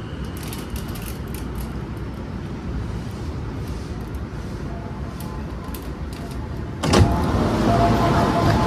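Inside an E233-7000 series commuter train at a standstill: a steady low rumble from the train, then just before seven seconds in the passenger doors slide open with a sudden thump and the louder platform sound comes in, with a few steady tones.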